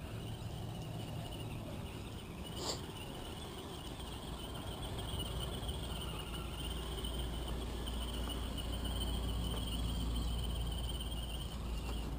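Crickets chirping in a steady high trill, with a low rumble underneath and a single sharp click nearly three seconds in.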